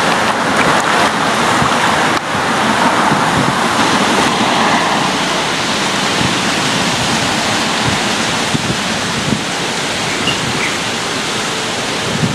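Steady, loud rushing of flowing river water.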